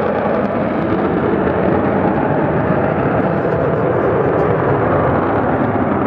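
Aircraft flying a display overhead: a loud, steady engine rush with no clear pitch.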